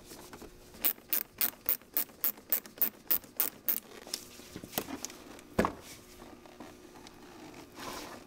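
Ratchet with a 7 mm socket clicking in a quick, even run of about a dozen clicks, roughly four a second, as it loosens the hose clamp on the upper intercooler pipe. A couple of single knocks follow, then a rustle near the end as the pipe is worked loose.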